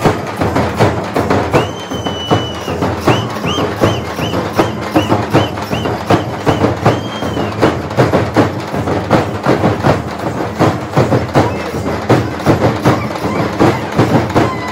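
Fast, loud teenmaar drumming on dappu frame drums, with dense strokes in a driving rhythm for dancing. From about two seconds in until past seven seconds, a shrill high note sounds once long and then in short repeated blasts about twice a second.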